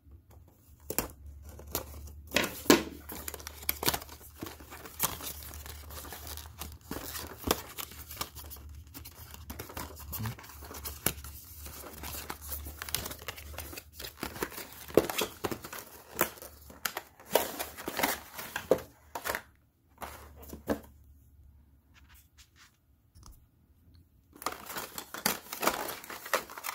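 Small electronics box and its packaging being opened by hand: tearing, crinkling and rustling with scattered sharp clicks, and a quiet lull of a few seconds near the end before the handling resumes.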